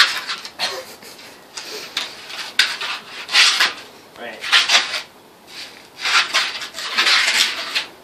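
Skateboard scraping and rolling on concrete in a series of short rasping bursts, about one a second, as the board is shuffled back and forth under the rider's shoes.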